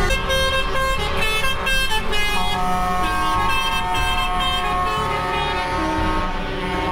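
Truck air horns and other vehicle horns honking over traffic noise: a run of short repeated blasts in the first couple of seconds, then several long held horn tones sounding together.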